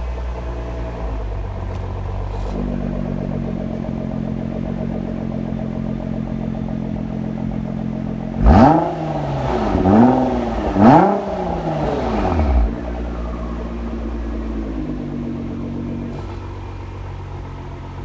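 Nissan GT-R R35's twin-turbo 3.8-litre V6 idling steadily through an Armytrix cat-back exhaust. About halfway through come three quick throttle blips, each rev rising and falling in pitch, and then it settles back to idle.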